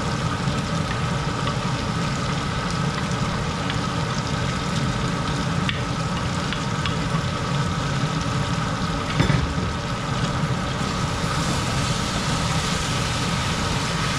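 Wild hog meat and curry masala frying in hot oil in a pot, a steady sizzle with a low rumble beneath it. A few light clicks come through, and a louder knock about nine seconds in.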